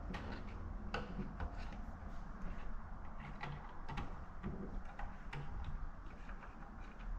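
Scattered light clicks and knocks, a few a second, over a low steady hum.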